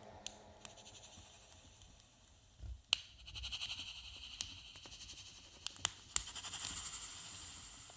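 Small plastic clicks and creaks as the plastic case of a handheld LED light is pulled apart. Sharp clicks come about three seconds in and twice around six seconds, each trailing into a long hissy reverb added by a reverb plug-in on the microphone.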